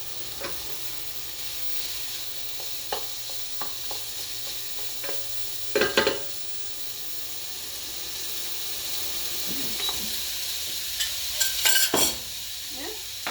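Stir fry of peppers, mushrooms and chicken sizzling steadily in a hot pan, with a utensil scraping and clattering against the pan as the food is tossed. The loudest clatters come about six seconds in and again near the end.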